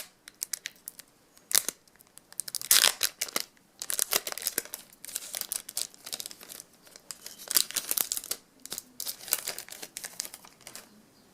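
Foil-wrapped trading-card pack being torn open and its wrapper crinkled, in several crackly bursts after a few sharp clicks.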